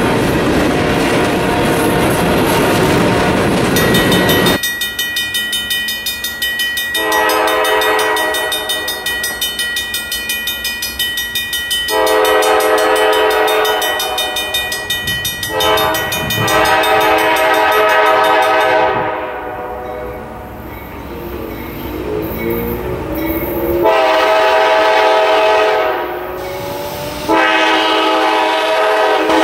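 Freight train's hopper cars rolling past with a steady rumble and wheel clatter for the first few seconds. Then a grade-crossing bell rings rapidly while an approaching CSX diesel locomotive sounds its air horn in a series of long blasts for the crossing, the last two shorter.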